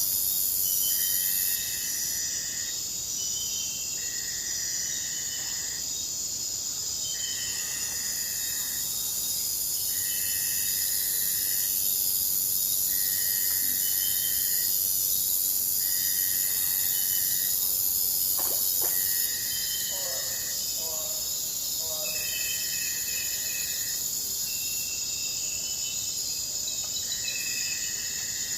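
Forest insect chorus: a steady, high shrill drone, with a call about a second long repeating roughly every two seconds. Short chirps sound between the calls.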